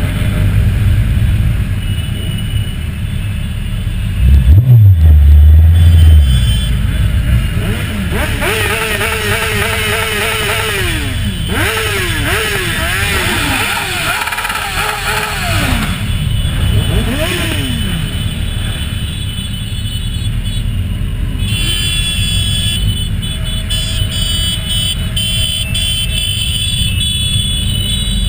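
A group of sport motorcycles running in traffic, heard from a camera on one of the bikes, with a steady low rumble. A loud, low engine blast comes about four seconds in. Through the middle, engines rev up and down again and again.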